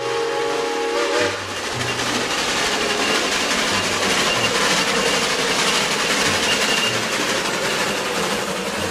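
Steam locomotive passing close by: a short steam-whistle chord that stops about a second in, then a steady rush of steam and running gear as it goes by.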